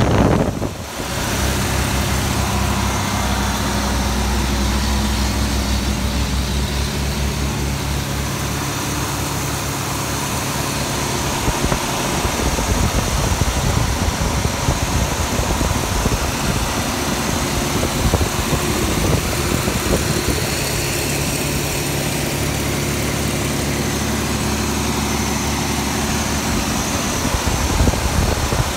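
1962 Austin-Healey engine idling steadily, heard up close from inside the engine bay.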